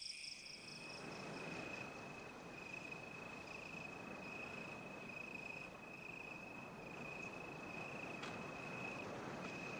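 Crickets chirring: one steady high-pitched trill, over a soft hiss of outdoor ambience.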